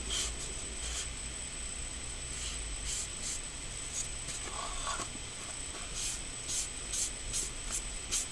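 Foam brush swishing over damp paper in short, irregular strokes as it spreads cyanotype sensitizer, over a faint steady high whine and low hum.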